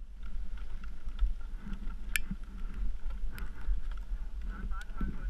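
Low rumble of wind and handling noise on a helmet camera's microphone, with scattered sharp clicks and knocks from ski gear, the loudest about two seconds in.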